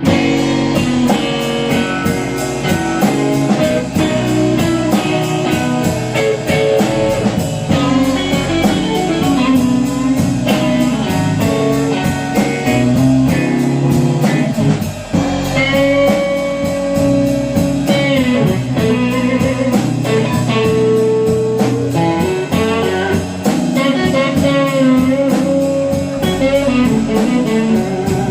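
Instrumental intro of a slow blues in G: electric guitar playing lead with bent notes over a drum kit keeping time on the cymbals.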